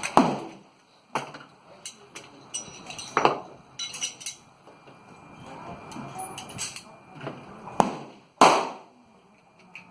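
Gunshots from handguns and a pump shotgun, fired at uneven intervals with several seconds of pause between some of them, the loudest two close together near the end. Lighter metallic clicks and clatter of gun handling come between the shots.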